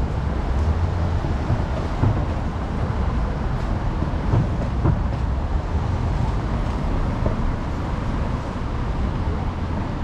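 City street traffic and the low rumble of an electric scooter riding over pavement, picked up by a camera mic on the handlebars, with a few short knocks.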